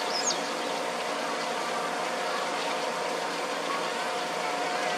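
A steady mechanical hum over a constant hiss, with a single short high bird chirp about a third of a second in.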